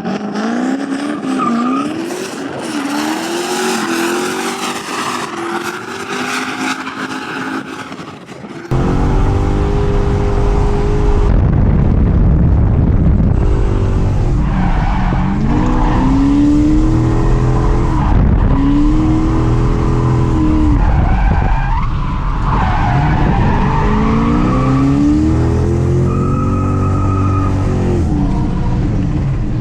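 2007 Ford Mustang drifting: the engine revs up and down over and over while the tires squeal and skid. About nine seconds in the sound turns suddenly louder, with a heavy low rumble.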